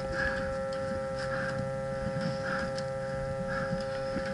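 Steady electrical hum made of several steady tones, with a soft pulse repeating about once a second.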